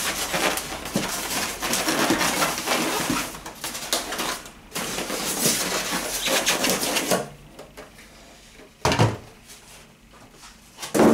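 Expanded-polystyrene packing blocks rubbing and crackling against each other and the machine as they are worked off a boxed sewing machine. The dense crackle runs for about seven seconds and then stops, followed by two short knocks near the end.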